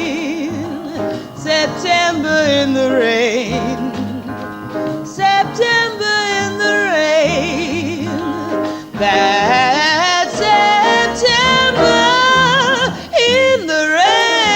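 Female jazz singer drawing out long, sliding held notes with wide vibrato and no clear words, over piano, upright bass and drums, in a live concert-hall recording.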